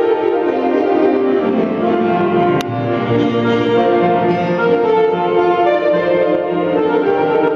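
Organ and saxophone playing together: a melody of held notes over sustained organ chords, with a low organ note coming in about two and a half seconds in. A brief click sounds at the same moment.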